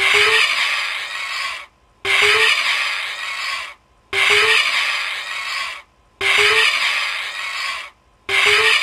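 Vulture hissing: a harsh, noisy hiss of under two seconds that starts loud and fades. The same recording is looped, sounding five times about every two seconds with short silences between.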